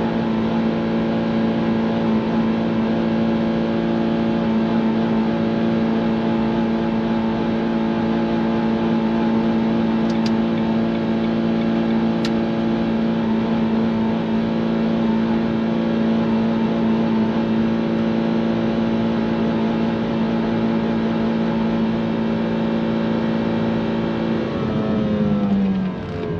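Mazda Miata's four-cylinder engine held at high revs for a long, steady run, its pitch not wavering: a rev-limiter run. Near the end the revs are let off and the pitch falls away.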